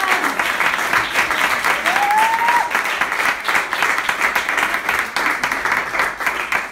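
Audience in a small club applauding steadily, many hands clapping at once.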